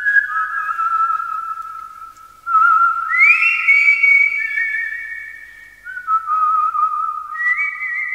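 A whistled melody: one line of long held notes with a slight waver, sliding up into higher notes about three seconds in and again near the end.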